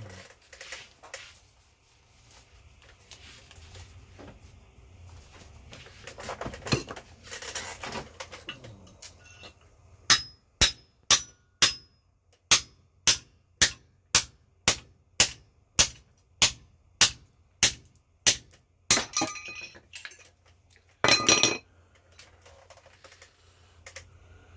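A hammer striking metal in a steady run of about sixteen sharp blows, roughly two a second, working a stuck part loose during a teardown; a short clatter of parts follows near the end.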